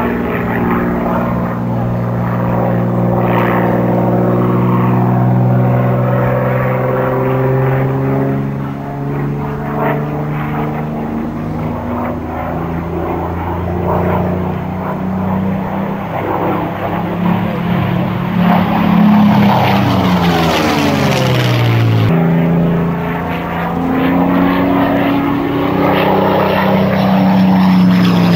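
Piston-engined propeller fighter in a flying display, its engine drone swelling and sagging in pitch as it manoeuvres, with a falling pitch sweep as it passes by about two-thirds of the way in. After an abrupt change, a Supermarine Spitfire's Rolls-Royce Merlin V12 grows louder and rises in pitch as it comes in for a low pass.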